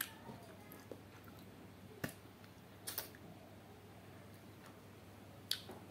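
Faint eating sounds from chicken curry being eaten by hand: about four short, sharp clicks spread apart, over a low hiss.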